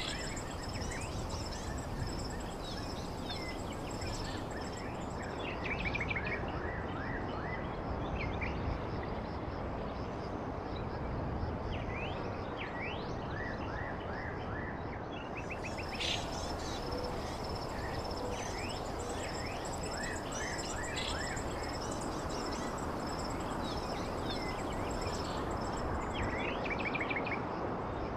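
Outdoor ambience: many short bird chirps over a steady bed of background noise, with a continuous high-pitched buzz running underneath.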